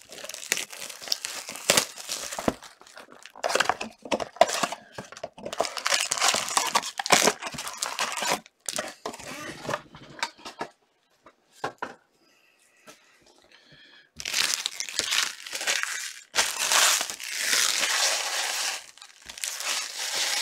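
Clear plastic wrapping crinkling and tearing in irregular bursts as a sealed trading card box is unwrapped by hand. There is a pause of a few seconds about halfway, then dense crinkling again.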